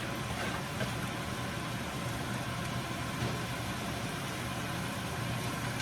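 Ground beef with chopped green bell pepper and onion sizzling steadily in the pot, over a low steady hum.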